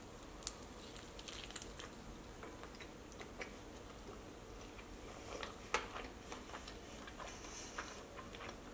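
Faint close-miked chewing of a meatball slider with a baked spaghetti bun, burrata and marinara: soft wet mouth clicks and smacks, one louder click a little under six seconds in.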